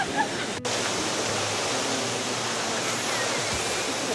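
Steady rush of water in a dolphin pool: a continuous, even hiss, broken by a brief dropout under a second in.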